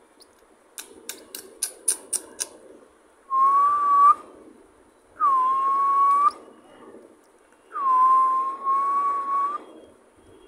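A quick run of about six sharp clicks, then three long whistled tones, each about a second, holding one pitch after a short dip at the start.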